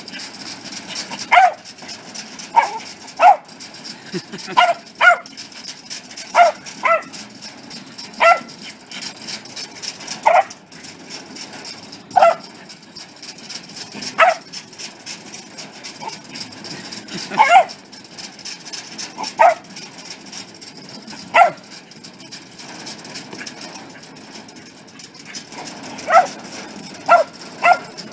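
Welsh corgi barking in short, sharp, high yips, one every second or two, with a brief pause near the end.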